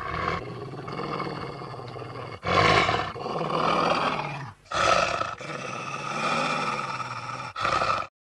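Werewolf sound effects: a run of beastly roars and snarls, one straight after another. The loudest come in at about two and a half seconds and again just before five seconds, and the last is cut off abruptly near the end.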